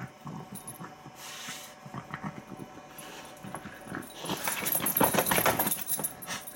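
A small pet dog making soft noises close by, with a dense run of rapid clicks from about four seconds in, lasting about two seconds.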